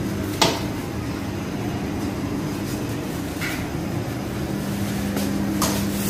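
Steady low mechanical hum with a held tone, with a few sharp clinks of kitchen utensils on steel; the loudest clink comes about half a second in.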